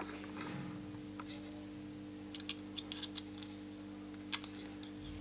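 Light clicks and taps of a soldering iron and fingers on a power-supply circuit board while a diode leg is desoldered. There are a few small clicks about two seconds in and a sharper one near the end, over a steady low hum.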